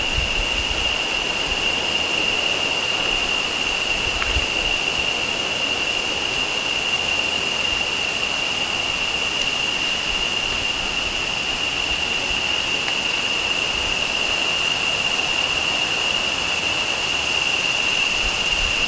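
Tropical forest ambience: the steady rushing of a nearby river, with a constant high-pitched drone of insects over it.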